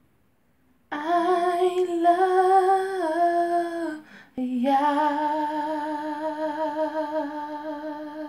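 A woman's voice singing unaccompanied, without clear words, in two long held phrases; the second phrase wavers in pitch with vibrato.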